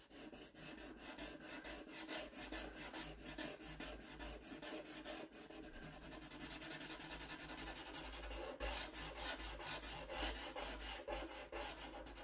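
Black paint marker scribbling on paper: rapid back-and-forth strokes of the nib rubbing and scratching as an area is filled in solid.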